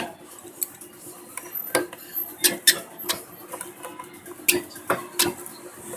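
Small screwdriver removing the screws from an opened smartphone, making irregular light metallic clicks and taps, over a faint steady hum.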